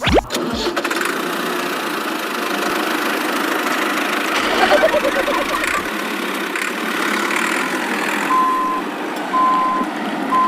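A vehicle engine running steadily, with three short beeps near the end.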